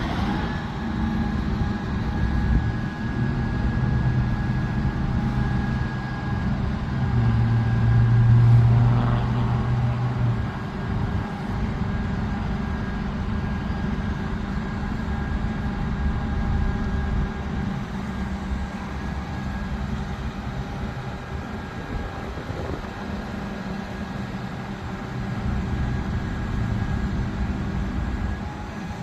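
Mobile crane's engine running under load while hoisting a compressor, a steady drone that swells louder for a few seconds about a third of the way in, then settles back.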